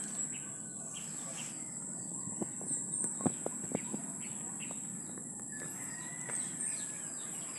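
Rural outdoor garden ambience: a steady high insect hum with faint bird calls, and a few sharp clicks about three seconds in.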